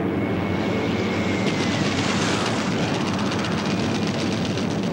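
Piston aircraft engines running loudly and steadily, with a high whine that falls in pitch a little past two seconds in, as a propeller warplane passes.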